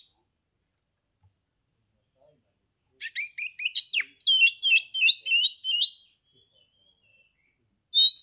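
Male oriental magpie-robin singing: after a pause, a bout of rapid, repeated whistled notes lasting about three seconds, with another bout starting right at the end.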